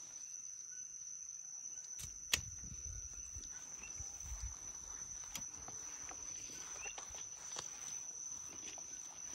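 Steady high-pitched trill of night crickets, with rustling among dragonfruit cactus stems and shuffling footsteps. A sharp snip about two seconds in, as pruning snips cut a dragonfruit from the stem, is the loudest sound.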